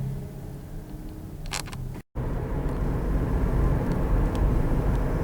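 Strong wind buffeting the microphone: a loud, even low rumble after a short dropout to silence about two seconds in. Before the dropout a steady low hum with a few clicks.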